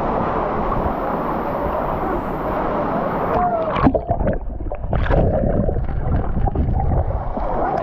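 Steady rush of a waterfall. About three and a half seconds in it gives way to close, uneven splashing and gurgling water.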